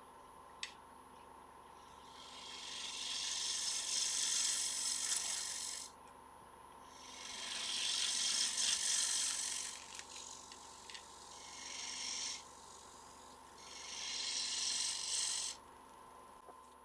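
Turning gouge cutting a spinning sycamore blank on a wood lathe: four passes of a few seconds each, a loud hiss as the shavings peel off, over the steady hum of the lathe running. There is a single click about half a second in.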